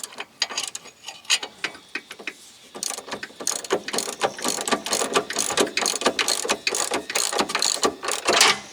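Hand ratchet and socket clicking as a rear wheel hub bearing mounting bolt is turned, in short strokes that become rapid and steady after about three seconds.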